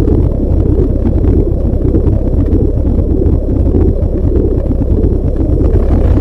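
Space audio presented as the sound of a black hole: a loud, steady, deep rumble like a distant roar of wind, with no clear tone or rhythm.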